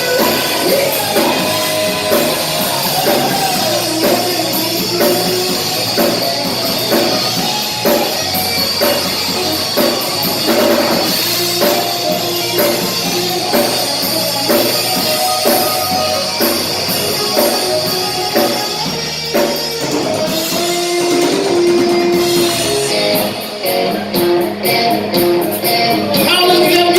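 Live rock band playing, with electric guitar and a drum kit.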